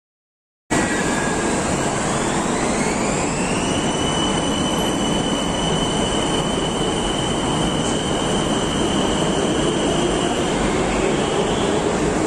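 BTS Skytrain EMU-A2 electric train pulling away from the platform. It starts abruptly just under a second in: its traction motors' whine climbs in pitch for about three seconds, then holds steady over the rumble of wheels on rail.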